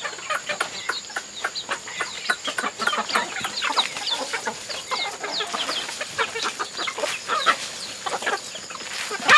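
A flock of hens and roosters clucking, many short calls overlapping, as they crowd in to be fed, with scattered short clicks among them.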